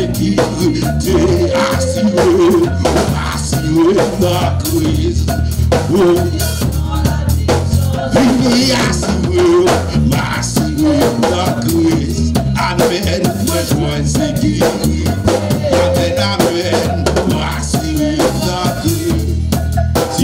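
Live praise-band music driven by a drum kit: snare and cymbal hits over a strong, deep bass line.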